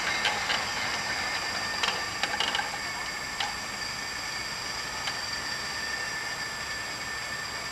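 MD 900 Explorer helicopter idling on the ground after landing, its twin turbine engines giving a steady high whine while the main rotor turns slowly. A few faint clicks come through in the first few seconds.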